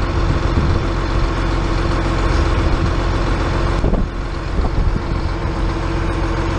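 Heavy diesel engine of farm machinery running steadily at constant speed: a low rumble with a steady whine over it, dipping briefly about four seconds in.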